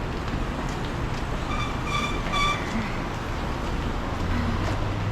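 Steady city street traffic noise, with three short high-pitched beeps about two seconds in and a low engine hum coming in near the end.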